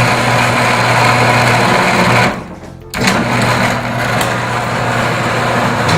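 Electric garage door opener motor running the door, stopping for a moment a little over two seconds in, then running again. The door is being run while its travel limits are set.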